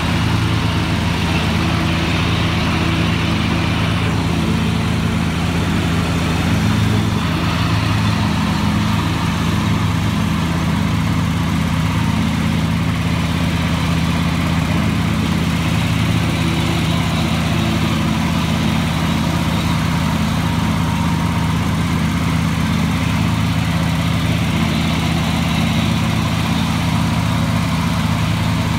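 Scag Tiger Cub zero-turn riding mower with a 61-inch deck running steadily while mowing grass, its engine holding an even, constant hum.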